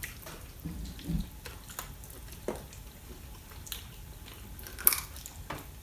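Eating at the table: chewing and mouth sounds with scattered sharp clicks and clinks of cutlery on plates, the sharpest about five seconds in. A brief low hum about a second in.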